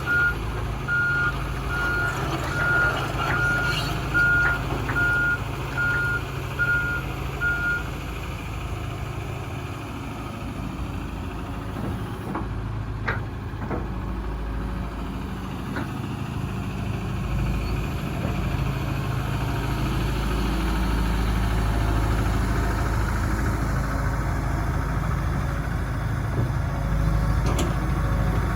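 A Hitachi ZX240LC-3 excavator's diesel engine running steadily, with its travel alarm beeping evenly for the first several seconds and then stopping. The engine keeps running, a little louder near the end, with a few light clanks about halfway through.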